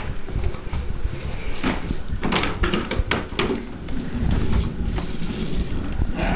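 Plastic toy fire-truck push walker rolling over a hard floor, its wheels rumbling and its plastic parts rattling and knocking.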